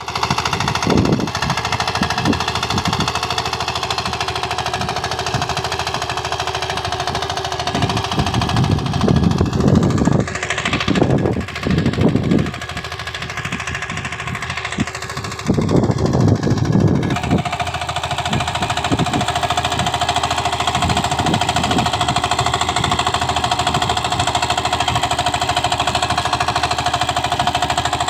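Kirloskar Mini T8 power tiller's small single-cylinder engine running with a rapid, pounding beat as its rotary tines work the soil. It gets louder and rougher for several seconds in the middle.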